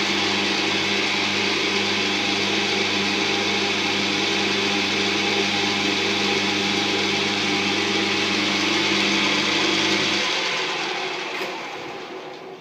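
1945 Hercus 9-inch model C lathe running under power, its belt drive turning the spindle and chuck at steady speed with a steady motor hum and a whir from the belt and freshly oiled spindle bearings. About ten seconds in the motor is switched off and the spindle coasts down freely, fading out over a couple of seconds.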